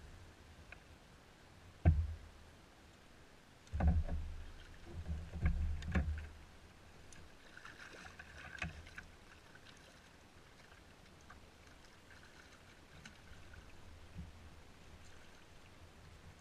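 Paddle knocking and thumping against a kayak hull: one sharp knock about two seconds in, then a cluster of heavier thumps a couple of seconds later, followed by faint handling noise.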